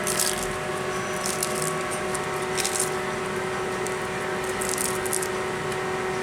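A steady hum with several fixed tones, under short, irregular rustling and clinking noises like small objects being handled.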